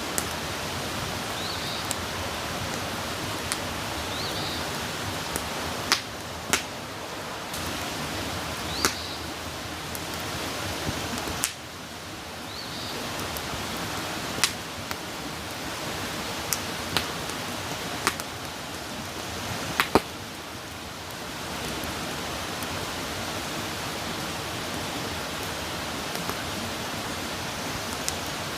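Wood campfire burning with a steady hiss and irregular sharp crackling pops, the loudest about twenty seconds in.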